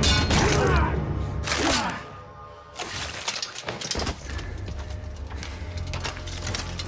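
Steel swords clashing and ringing in the first two seconds of a film fight, then fainter metal clinks over a film score with a low drone.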